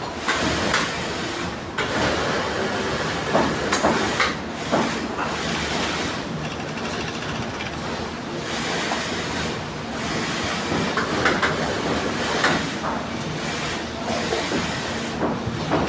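Industrial sewing machine running: a steady motor hum with a mechanical rattle and scattered clicks, as a leather glove cuff is stitched.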